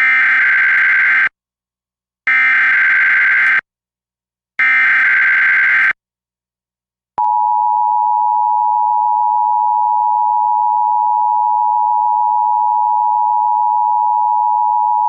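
Emergency Alert System header tones: three identical bursts of harsh digital data screech, about 1.3 s each with a second of silence between, then the two-tone attention signal, a steady tone held for the last eight seconds. Together they open an EAS Required Monthly Test.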